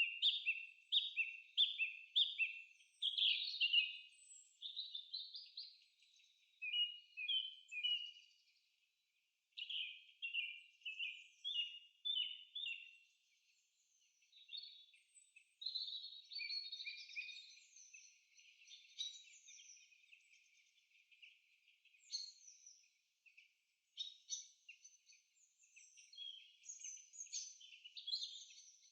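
Songbirds singing in a forest: runs of quick repeated chirping notes, each phrase lasting a few seconds with short pauses between. Several songs overlap in the second half.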